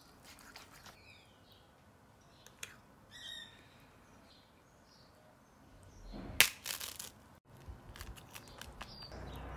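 Faint bird chirps with small clicks and scrapes from handling the food, and one sharp, loud click about six and a half seconds in.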